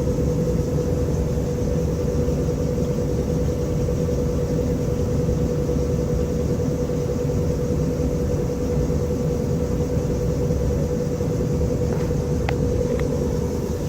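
1962 Norge washing machine spinning with its pump running: a loud, steady mechanical drone with a constant hum.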